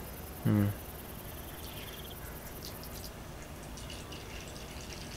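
Water squeezed from a plastic squeeze bottle trickling and dripping faintly into a small plastic water dish. A short vocal sound from a person comes about half a second in.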